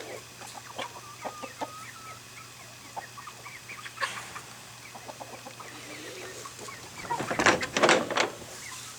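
Chickens clucking with scattered short calls, and a louder burst of calling and commotion about seven seconds in.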